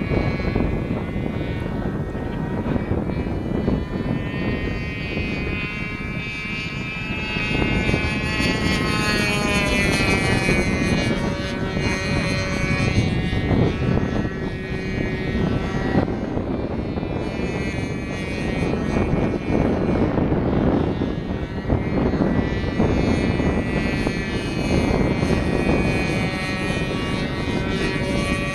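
Radio-controlled model aeroplane flying overhead: its motor and propeller give a whine that rises and falls in pitch as it is throttled and passes by, over a steady rushing noise.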